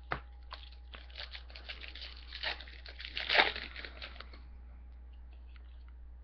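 A foil trading-card pack wrapper being crinkled and torn open by hand: a single click at the start, then a dense run of crackles for about three seconds, loudest a little past the middle.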